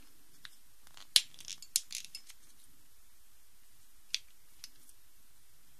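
Small hard clicks of plastic Rubik's cube pieces being pressed and snapped into place on the cube's core: a quick cluster of clicks about a second in, then two lone clicks near the end.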